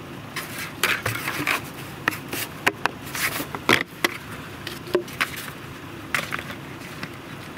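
Irregular scrapes and rustles of gloved hands working dirt and sand while bedding a foothold trap, with short sharper knocks among them.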